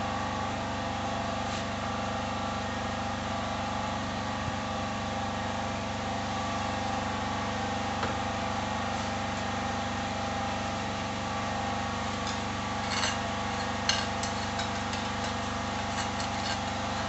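Generator engine running steadily with a constant hum. A few light clicks and knocks come about two-thirds of the way through.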